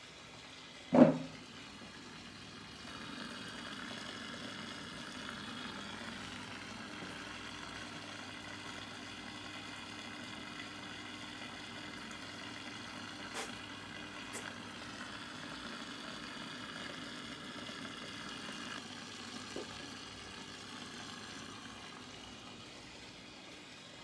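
A sharp knock about a second in, then the aquarium's filter running: a steady low hum with a fizzing, watery hiss of moving water, easing off near the end, with two faint clicks midway.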